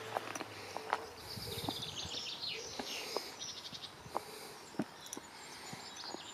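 Small songbirds singing and chirping in quick, high trills, with a few soft clicks close by.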